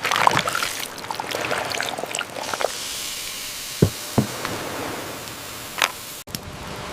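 A few sharp knocks and some clattering over a steady hiss.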